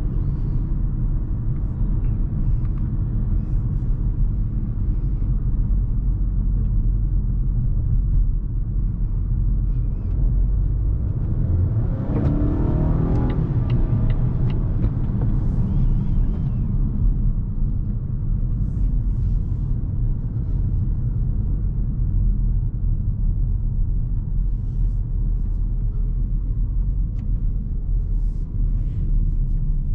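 2020 Volvo V60 T5 Cross Country driving, heard inside the cabin: a steady low rumble of tyres, road and its 2.0-litre turbocharged four-cylinder engine. About twelve seconds in, a louder pitched sound swells and fades over a few seconds.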